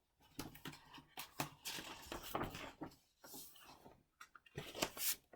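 Soft, irregular rustling and rubbing of paper with a few light knocks, as a picture book is handled and its pages turned.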